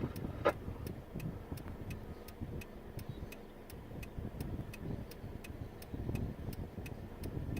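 Vehicle cabin rumble from a car on the move, with a steady light ticking about three times a second.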